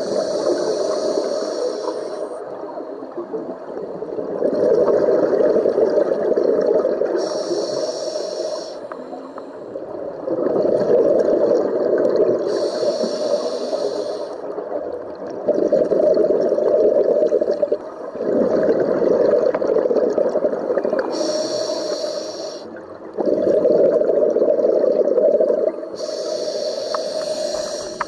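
Scuba diver breathing through a regulator underwater: five hissing inhales, each followed by a longer bubbling rush of exhaled air, in a slow, steady cycle.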